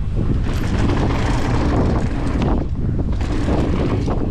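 Wind buffeting the microphone while a mountain bike rolls fast over a loose gravel trail, with tyre and frame rattle mixed into a loud, steady rush.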